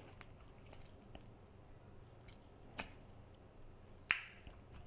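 Faint small clicks, then a sharper click a little before three seconds in and a loud metallic snap near the end from a flip-top lighter, lit to burn the tip of the beading thread.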